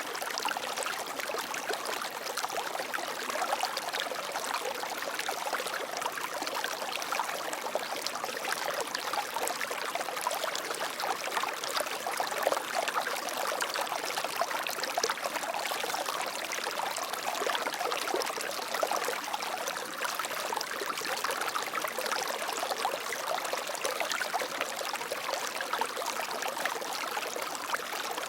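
Water flowing steadily in a stream, a continuous splashing and trickling rush.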